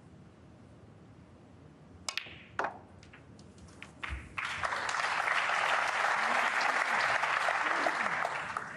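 Snooker balls clicking as shots are played, with sharp clicks about two seconds in and again just after four seconds. Then the audience applauds steadily for about four seconds as the frame is won.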